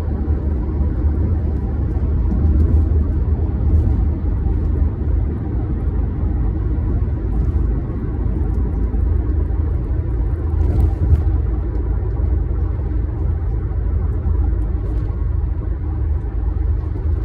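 Steady low rumble with a few faint clicks, as of plastic toy parts being fitted together.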